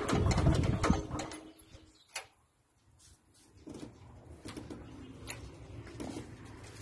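Freshly rebuilt Lister SR3 three-cylinder diesel engine being shut down, its clatter slowing and dying away within about a second and a half, then a single sharp click. After that it is nearly quiet, with faint bird calls.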